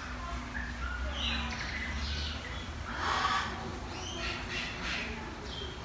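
Birds calling: scattered short chirps and squawks, with one louder squawk about three seconds in, over a steady low hum.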